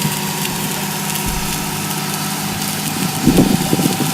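An engine running steadily at idle over an even hiss, with uneven low rumbling starting near the end.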